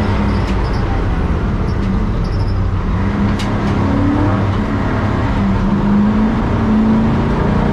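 Race car engine under hard driving, heard from inside the cockpit. Its pitch falls and climbs as it goes through the revs, with a sharp click about three and a half seconds in, around a sequential gear change, over steady road rumble.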